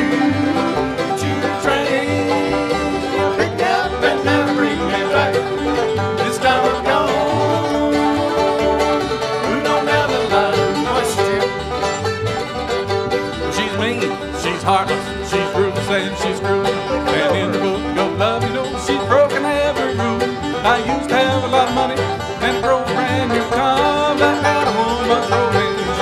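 Bluegrass band playing an instrumental break with fiddle, five-string banjo, acoustic guitar, mandolin and upright bass, with a steady bass beat under the picking and no singing.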